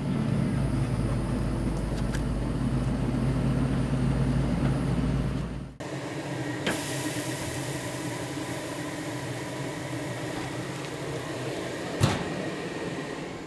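A vehicle engine droning steadily as it drives. It cuts off abruptly about six seconds in and gives way to the steady hiss of ribeye steaks sizzling on a grill, with one sharp knock about twelve seconds in.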